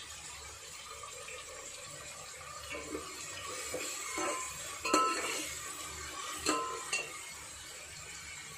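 A perforated steel ladle scraping and clinking against an aluminium pot as it stirs sliced onions and ginger-garlic paste frying in oil, over a low steady sizzle. The clinks come in a cluster through the middle, the loudest about halfway, some ringing briefly.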